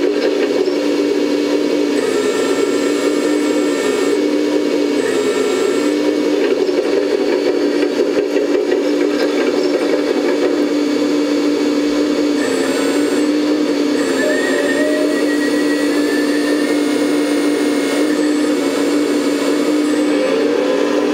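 Electric-driven hydraulic pump of a 1/14-scale RC excavator running steadily, a motor whir with a hum that dips briefly every second or two as the boom and bucket are worked. Faint high whines come and go over it.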